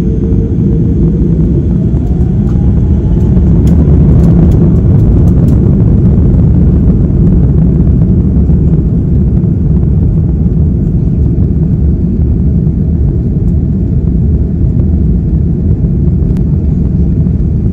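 Airbus A340-600's four Rolls-Royce Trent 556 turbofans at takeoff thrust, heard inside the cabin near the wing: a loud, steady rumble with a rising whine in the first few seconds and light cabin rattles about four to five seconds in.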